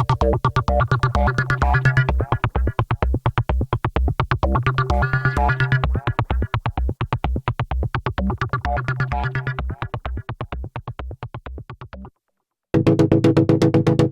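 Arturia MiniFreak synthesizer playing a fast pulsing electronic bass sequence with chord tones, which fades down and cuts off about twelve seconds in. After a brief silence, a fuller, sustained synth chord sound starts near the end.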